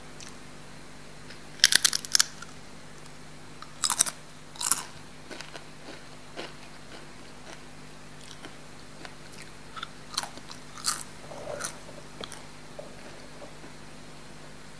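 Crisp snack chips being bitten and chewed close to the microphone: clusters of loud crunches about two and four seconds in and again around ten to eleven seconds, with quieter crackly chewing between them.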